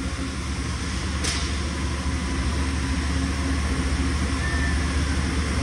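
Steady low machinery hum with hiss, with one brief click about a second in.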